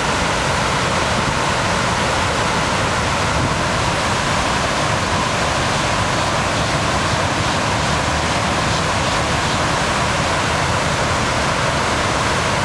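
Floodwater pouring over a dam in a swollen river: a loud, steady rush of falling water with no let-up.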